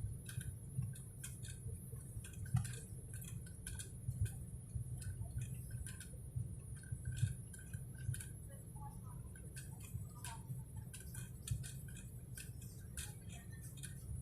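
Steady low drone of an airliner cabin in flight, with irregular sharp clicks and ticks, a few each second, over it.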